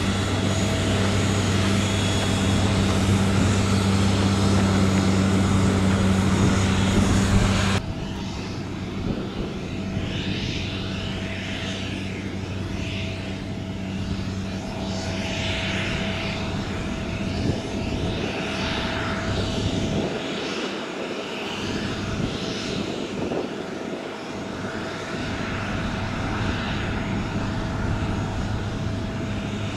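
Steady engine drone with a low hum and a higher whine as a Boeing 777 airliner is towed across the ground. About eight seconds in the sound drops abruptly to a quieter but similar steady drone.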